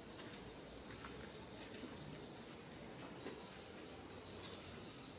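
Faint outdoor ambience: a steady background hiss with three short, high chirps repeating at even intervals, about one every second and a half or so, and a few faint clicks.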